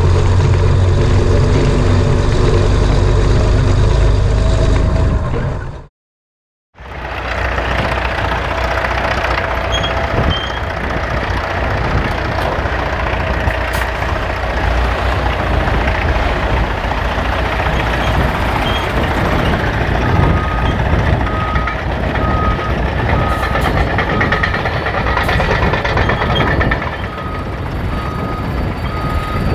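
Heavy truck and harvesting machinery engines running, with a strong engine note close by for the first few seconds, then a sudden cut and a steady machinery din. From about two-thirds of the way through, a reversing alarm beeps at an even pace.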